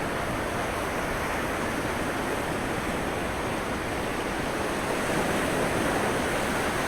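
Sea surf washing in a steady rush of waves, swelling a little about five seconds in.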